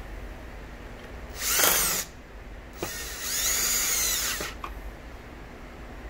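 Power drill driving screws back into a vacuum's bottom plate: two runs of the drill motor, a short one about a second and a half in and a longer one about three seconds in, the motor's pitch rising and falling as it speeds up and slows.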